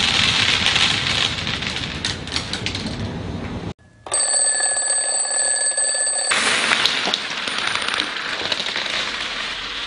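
Small candies pouring and rattling onto a wooden tabletop. After a brief cut, a twin-bell alarm clock rings for about two seconds and stops suddenly, followed by coins rattling and scattering across a wooden floor.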